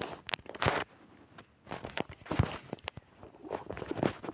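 Footsteps: a few short, irregularly spaced steps.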